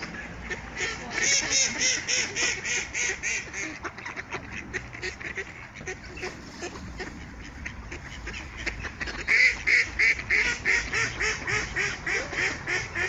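Mallard ducks quacking in quick runs of calls, about five a second, loudest in one run about a second in and another from about nine seconds in.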